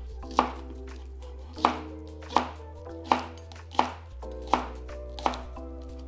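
Kitchen knife chopping scallion whites, seven sharp, evenly spaced chops, about three every two seconds. Soft background music plays underneath.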